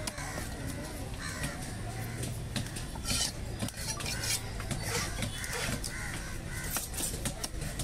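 A cleaver chopping fish on a wooden block: irregular knocks, with knife clinks and scrapes. Crows call several times in the background.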